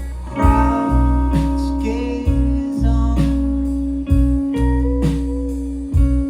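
Indie rock band playing live: drums keeping a steady beat of about two hits a second under a held electric bass note and sustained guitar tones.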